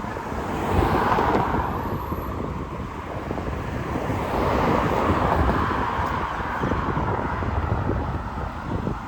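Road traffic: cars driving past, one passing about a second in and another swelling up around the middle.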